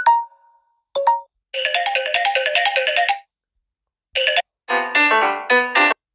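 Samsung Galaxy S8 ringtone previews played one after another: short electronic melodies, each stopping abruptly as the next starts, with a silent gap of about a second in the middle.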